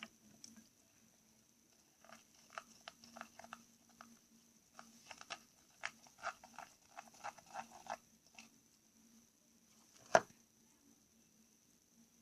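Small plastic clicks and taps of slime ingredients and a bowl being handled, coming in quick runs, then one loud knock near the end.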